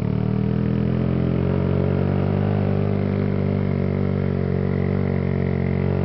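Motorcycle engine running at a steady speed while riding, heard from on the bike: an even, unbroken engine drone with little change in pitch.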